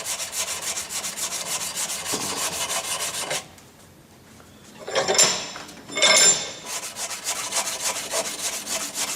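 Hardened steel Allen wrench rubbed back and forth on 100-grit sandpaper backed by a flat file, in quick, even scraping strokes, polishing the steel bright before tempering. A pause comes about three and a half seconds in, then two louder, longer scrapes, then the quick strokes start again.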